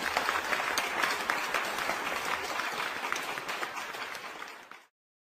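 Applause from a crowd clapping, slowly fading and stopping just before the end.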